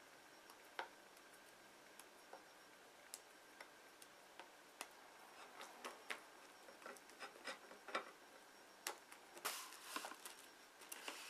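Light, irregular clicks and taps of kitchen utensils and containers being handled. They are sparse at first and come more often from about halfway, with a brief rustle near the end.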